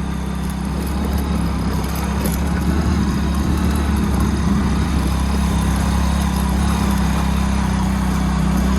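Motorcycle engine running steadily while riding along, a low even drone under a constant rush of noise, growing slightly louder in the first couple of seconds.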